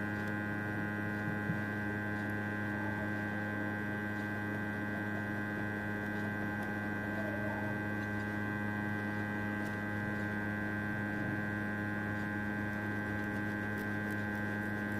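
Steady electrical mains hum: a low buzz with many overtones.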